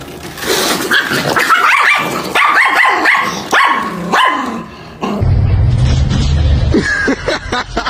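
Small dog yapping and barking again and again in short, high calls that bend in pitch. About five seconds in the sound changes to a steady low rumble with a few brief cries, as dogs scuffle.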